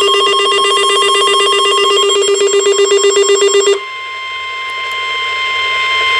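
NOAA Weather Radio alert signal: first a warbling, rapidly alternating electronic data tone, the SAME digital header that codes the coming warning. About four seconds in it switches to the steady 1050 Hz weather radio warning alarm tone.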